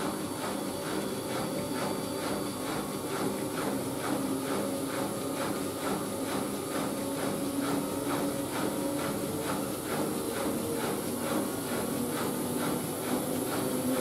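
Siemens Siwamat IQ 716 front-loading washing machine running: a steady motor hum with a hiss and a regular pulse about three times a second.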